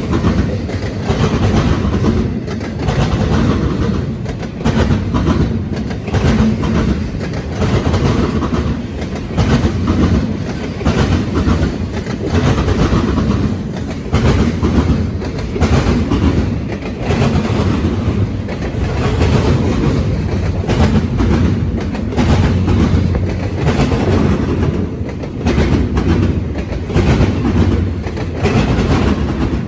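Long intermodal freight train rolling past, its wheels clacking over the rails in a steady repeating rhythm.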